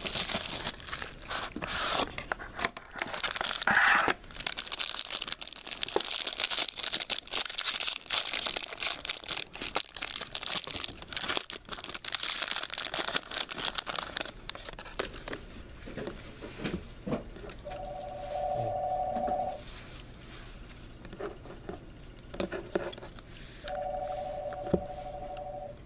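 Card-pack wrappers being torn open and crinkled, with dense crackling for most of the stretch. Later a steady electronic tone sounds twice, about two seconds each time.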